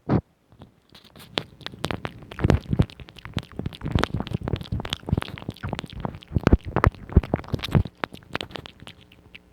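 Close-miked ASMR mouth sounds: a dense, irregular run of clicks, with one sharp click right at the start.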